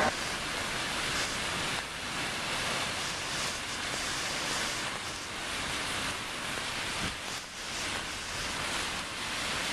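Steady outdoor city ambience: an even rushing hiss of wind and distant traffic, with no distinct events.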